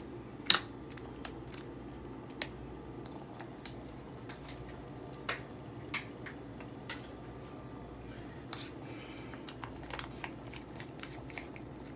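Scattered light clicks and taps of kitchen handling, the sharpest about half a second in, over a steady low room hum.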